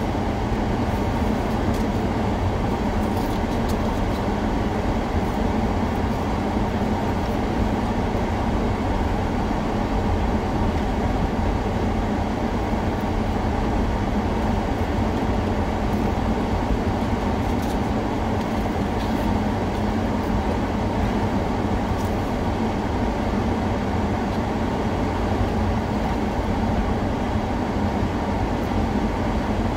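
Steady low rumble of a moving vehicle, with a constant hum.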